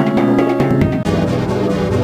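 Electronic video-game-style band music with layered synth notes and a beat; about a second in, the arrangement switches to a denser, bass-heavier section.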